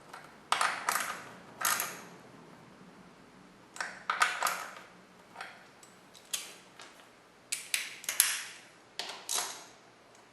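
Metal hand tool clicking and clinking in short bursts of two to four sharp strikes with a brief ring, on the 10 mm nuts of a motorcycle's brake line clamp.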